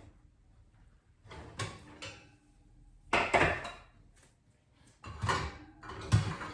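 Kitchen handling noises: a few separate knocks and clatters, as of a door and pans being moved, the loudest about three seconds in.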